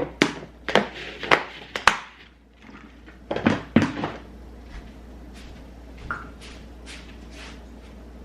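Sharp knocks and clatters of kitchen items and containers handled on a counter, about eight in the first four seconds, followed by fainter light ticks.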